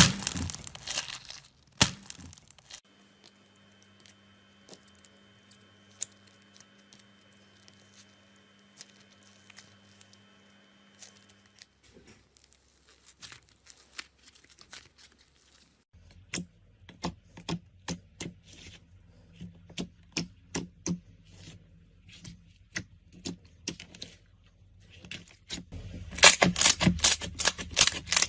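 Slime being squeezed and worked by hand, giving sharp crackles and pops: scattered at first, sparse through the middle, then thickening into a dense run of crackling near the end.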